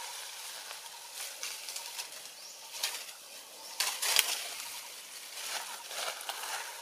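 Rustling and crackling of leaves and twigs in irregular short bursts, with a sharper snap about four seconds in.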